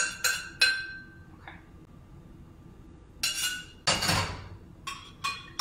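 A stainless steel saucepan clinks sharply a few times with a brief metallic ring as it is scraped out over a bowl. After a pause come clanks and a heavier thud about four seconds in as the pot is set back down on an electric coil stove, then a few light clinks near the end.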